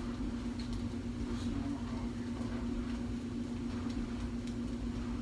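Microwave oven running with a steady low hum, with a few faint clicks from kitchen handling.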